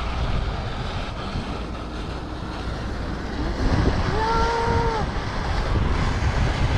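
Wind buffeting the microphone over a steady rush of water. About four seconds in comes a brief held tone, lasting under a second.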